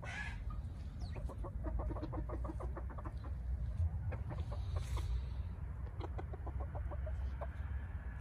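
Hen clucking in two quick runs of short clucks, about eight a second, one starting about a second in and one near the end, over a steady low rumble.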